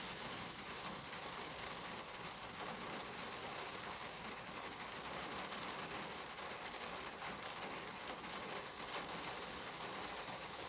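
Rain falling steadily on a car's windshield and body, heard from inside the car: an even hiss with many small drop ticks.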